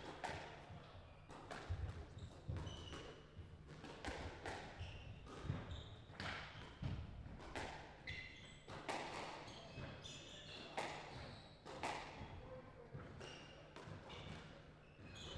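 Squash balls being hit against the court walls and floor in a squash hall: sharp echoing knocks, unevenly spaced at about one a second.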